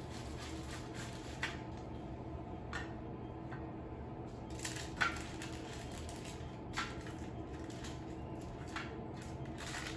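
A spatula scraping and knocking against a parchment-lined metal baking sheet and a plate while lifting baked fish fillets across. There are a few short scrapes and light knocks spread through, the sharpest about five seconds in, over a faint steady hum.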